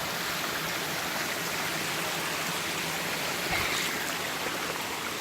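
Mountain stream running, a steady even rush of flowing water.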